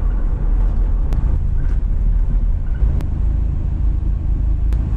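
Inside the cab of a 2009 Toyota HiAce Commuter diesel van on the move: a steady low rumble of engine and road noise, with a few faint clicks.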